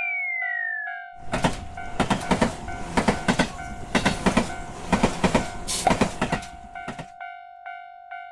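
Japanese railroad crossing bell ringing in a steady, repeating two-tone "kan-kan" rhythm, with a falling whistle-like tone in the first second. About a second in, a train passes for roughly six seconds, its wheels clattering rhythmically over the rail joints, then cuts off and leaves the crossing bell ringing alone.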